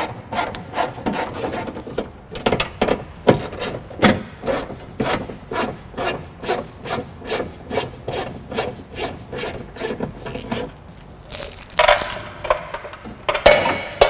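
A ratchet with a 10 mm socket clicks rapidly, several clicks a second, as the bolts holding a power window regulator bracket inside a car door are backed out. Near the end the clicking stops and a few louder scrapes and knocks of the loosened metal bracket follow.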